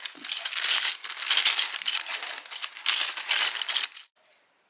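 Keyboard packaging being unwrapped and handled, crinkling in several swells that stop suddenly about four seconds in.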